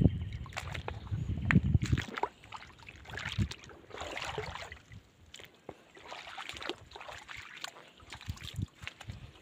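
Footsteps through shallow water on a wet rocky tidal flat, with light splashing and sloshing and scattered clicks; a low rumble for the first two seconds.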